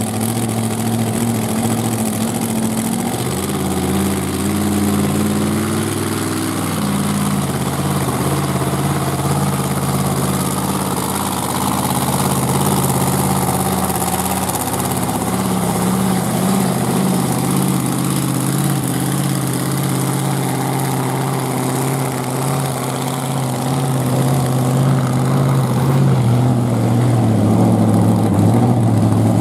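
Stone Crusher monster truck's supercharged V8 running at low revs as the truck drives slowly. Its note shifts between about three and seven seconds in and grows louder near the end.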